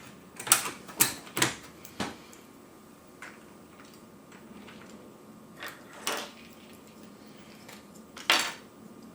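Sharp plastic clicks and taps of keycaps and keyboard parts being handled and fitted on an Amiga keyboard: four quick clicks in the first two seconds, then scattered fainter ticks and two more clicks later.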